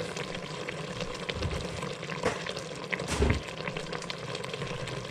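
Cubed chicken thighs and cream of chicken soup sizzling in an Instant Pot's stainless steel inner pot, a steady crackle. Two knocks a little under a second apart near the middle, the second with a low thump.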